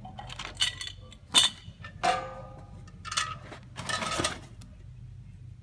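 Metal monitor-mount parts clinking and knocking as they are handled and set into foam cutouts in their case: a handful of separate clinks, the loudest about a second and a half in, one followed by a brief metallic ring.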